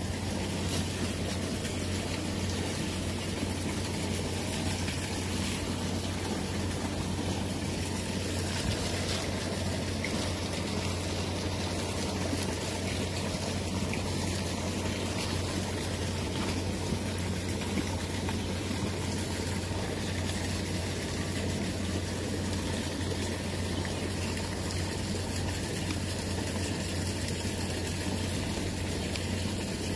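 A flooded river's fast brown water rushing steadily, a continuous even noise with a deep low rumble.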